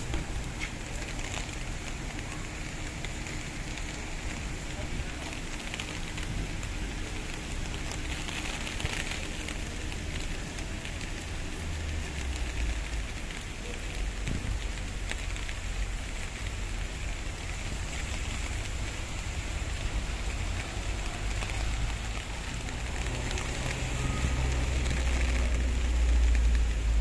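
Heavy rain falling steadily: a constant hiss and patter. A low rumble swells near the end and becomes the loudest part.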